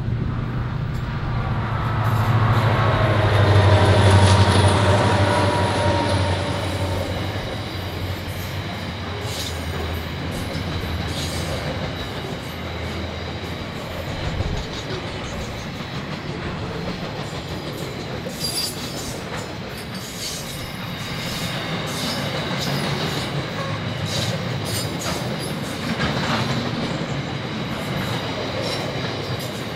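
A freight train's C class and CLF class diesel locomotives pass with a loud engine drone that peaks about four seconds in and falls in pitch as they go by. Then the freight wagons roll past with a steady rumble, clicking wheels over rail joints and a thin, high wheel squeal.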